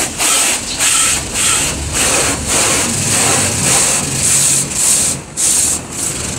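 Automatic car wash machinery working over the car, heard from inside the cabin: a loud, rhythmic swishing hiss that pulses just under twice a second over a low motor rumble.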